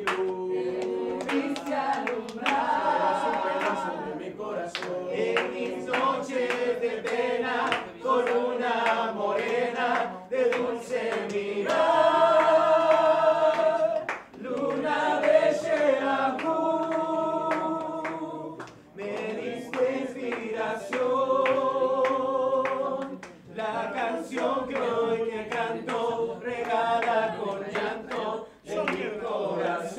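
A group of voices singing together unaccompanied, in long sung phrases with short breaks between them.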